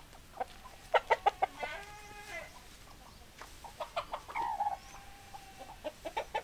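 Chickens clucking: quick runs of short, sharp notes about a second in, around four seconds and near the end, with two longer drawn-out calls between them.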